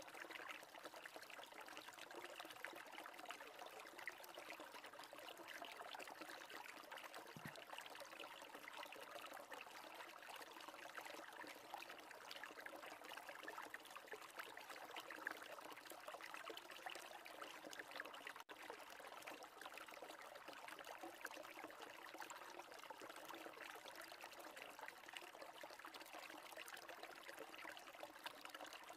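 Faint, steady trickle of running water, like a small stream, cutting out for an instant about two-thirds of the way through.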